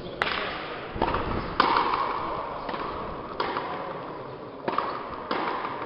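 Frontenis rally: the rubber ball is struck by rackets and smacks against the front wall, about seven sharp cracks at irregular intervals of half a second to a second and a half, each ringing on briefly in the echoing court.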